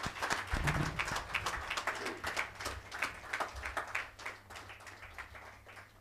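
Audience applauding, a crowd of hands clapping irregularly that dies away near the end.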